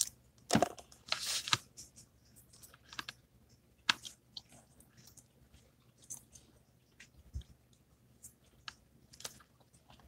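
Faint, irregular mouth sounds: chewing and small lip smacks, heard as scattered short clicks a second or so apart.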